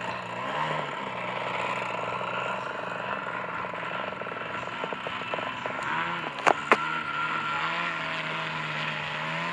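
Model aerobatic airplane's engine and propeller droning, its pitch rising and falling with the throttle as the plane hangs nose-up in a hover. Two sharp clicks about six and a half seconds in.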